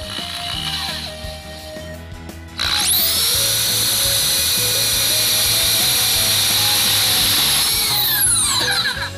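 Hitachi electric drill driving a self-drilling rivet into a slotted metal channel. The motor spins up sharply about two and a half seconds in, runs at a steady high whine for about six seconds, then winds down in pitch near the end.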